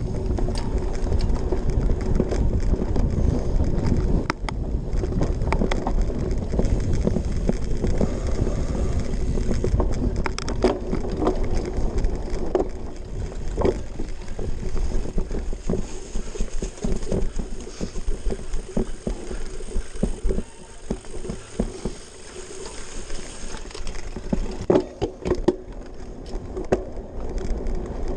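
Cyclocross bike ridden hard over bumpy grass and dirt, with a low rumble of tyres on rough ground and the frame and handlebars rattling and clacking at each bump. The rumble eases about halfway through, leaving mostly sharp rattles.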